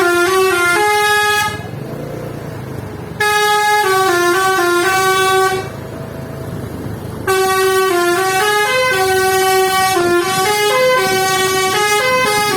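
A bus's Basuri multi-tone telolet horn playing a melody of stepped notes, in three bursts. The first stops about a second and a half in, the second runs from about three to five and a half seconds, and a longer one starts about seven seconds in.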